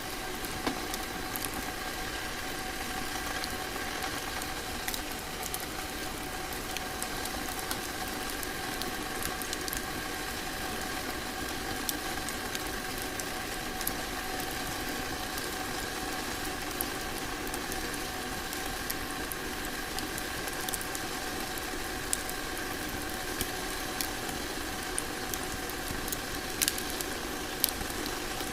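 Log fire crackling: a steady soft hiss with scattered sharp pops, a few louder ones near the end.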